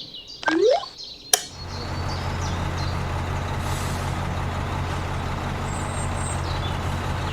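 Sharp click, then the mini tractor's motor starts about a second and a half in and runs steadily with an even low hum.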